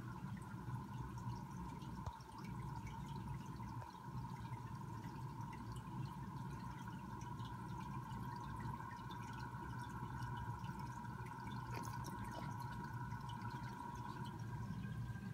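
Aquarium filter running: water trickling and dripping back into the tank over a steady pump hum with a faint high whine.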